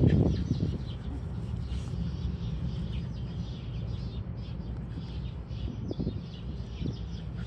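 Steady low wind rumble on the phone microphone, with faint bird chirps. A louder burst of sound comes from the two dogs play-wrestling in the first second.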